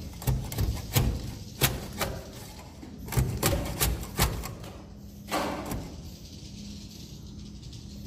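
Pole-mounted nest scraper knocking and scraping against wooden nesting planks as swiftlet nests are pried off into its net: a run of sharp knocks and taps for the first four seconds or so, then a short rasping scrape about five seconds in.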